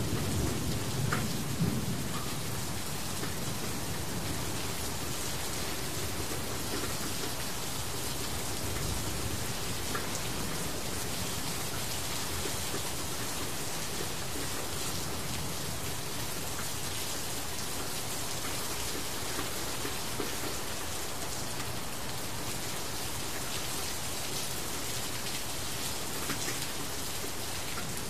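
Steady rain falling on a surface: an even hiss with scattered drop ticks. A low rumble swells briefly in the first two seconds.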